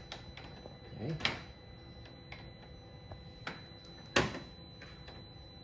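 Flathead screwdriver prying at a plastic clip behind a BMW's kidney grille to free the active-shutter arm. A few light clicks and two sharp snaps of plastic, one about a second in and a louder one about four seconds in.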